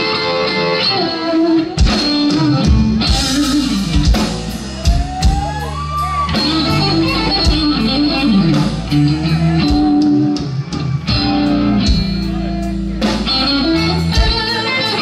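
Live blues-rock trio playing: electric guitar lead over bass and drums, with a bent guitar note about six seconds in.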